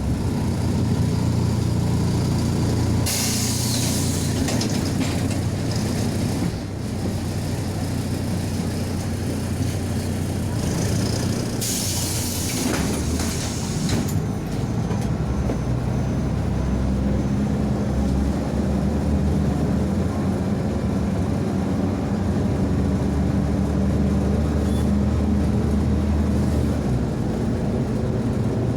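Inside a MAZ-105 articulated city bus: the diesel engine runs with a steady low drone, its note shifting about halfway through. Two loud hisses of released compressed air come a few seconds apart, the first about three seconds in and the second about twelve seconds in.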